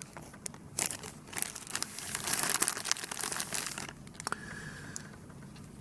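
Plastic packaging crinkling as the kit's small parts are handled, busiest from about one to four seconds in, with a few sharp clicks.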